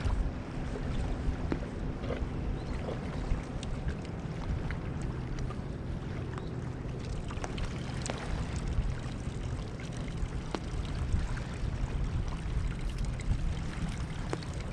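Steady wind noise on the microphone, with faint scattered clicks and small splashes from a hand digging in waterlogged sand.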